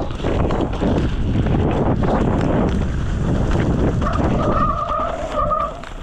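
Mountain bike tearing down a rough dirt trail: tyres skidding and rattling over the ground. A steady squeal comes in about four seconds in.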